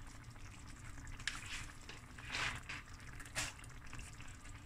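Chicken and tomato sauce simmering softly in a pan on a gas hob, with three brief sounds about a second apart, the middle one the longest.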